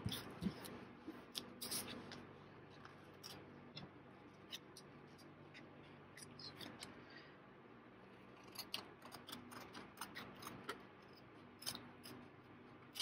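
Scissors snipping through paper and the washi tape overhanging a paper tag's edge, trimming off the excess. A series of short, faint snips, sparse at first and coming quickly in the second half.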